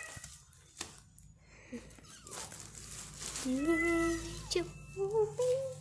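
A cat meowing: one long, drawn-out meow about three and a half seconds in, then a couple of shorter meows rising in pitch near the end.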